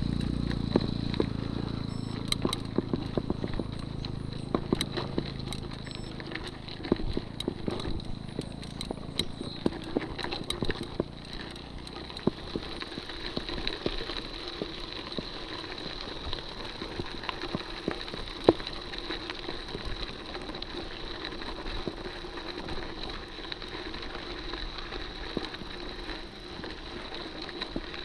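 Mountain bike rolling over a gravel road, with scattered clicks and rattles from the tyres and bike. A motorcycle engine fades away over the first several seconds. A steady high tone runs underneath.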